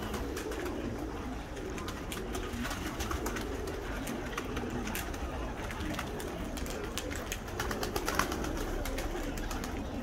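A flock of domestic pigeons cooing steadily while feeding on the ground, with many short clicks and wing flaps as birds peck, flutter and land.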